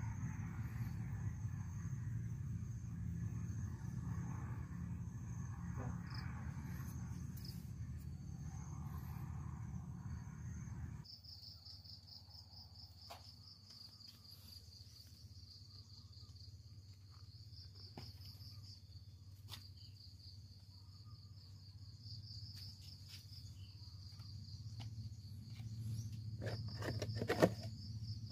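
Insects trilling steadily over a low rumble. After a sudden cut about eleven seconds in, a pulsing insect trill carries on over a quieter background, with a few faint ticks and a sharp knock near the end.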